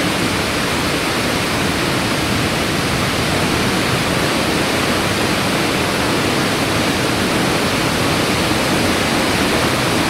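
The Ouzoud waterfalls, water plunging over rock cliffs into a gorge, rushing in a loud, steady, deep wash of noise.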